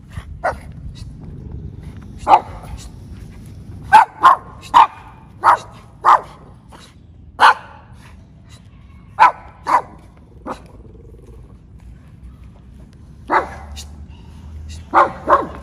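A small dog barking sharply in irregular bouts, about a dozen barks, some in quick runs of two or three.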